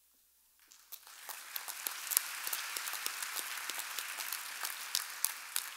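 Audience applauding, beginning about half a second in and quickly filling out into steady clapping with single sharp claps standing out.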